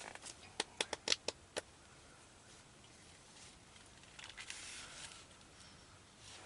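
A quick run of about seven sharp clicks in the first second and a half, then a soft rustle.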